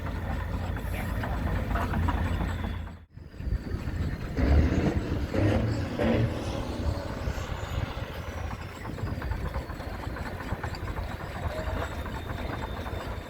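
Vintage Goodwin Barsby Acme stone crusher running, belt-driven by a 1918 Ruston Proctor steam traction engine: a steady mechanical clatter and rumble. It cuts out briefly about three seconds in, then comes back with a few louder knocks a second or two later.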